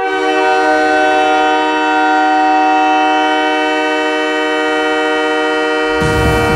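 Montreal Canadiens' goal horn sounding one long, steady chord of several tones. The goal song's music kicks in with drums and bass near the end.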